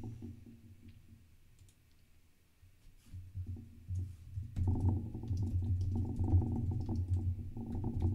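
Typing on a computer keyboard: scattered keystroke clicks, sparse at first, then faster and louder about halfway through.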